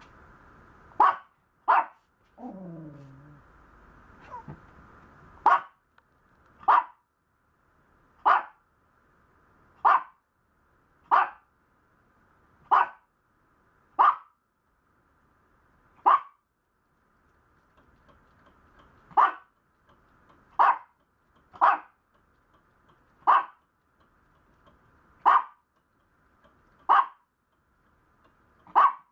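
Small Maltese dog barking in single short, sharp barks, about seventeen of them spaced one to three seconds apart. About two seconds in there is one lower sound that slides down in pitch.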